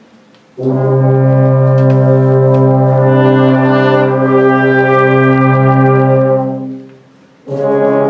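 Youth orchestra led by brass and tubas holding a long, loud chord for about six seconds. It fades out, and a second chord begins near the end.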